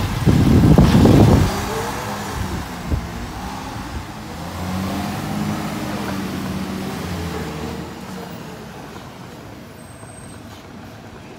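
Side-loader garbage truck pulling away from the kerb: a loud rush of noise in the first second and a half, then its diesel engine revs up and runs steadily as the truck drives off, fading over the last few seconds.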